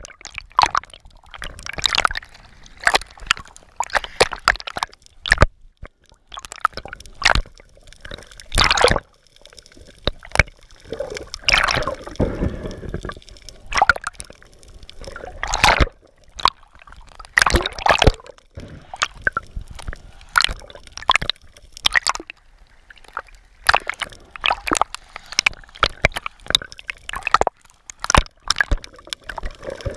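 Water sloshing and bubbling around a camera held underwater, with irregular splashes and pops every second or so.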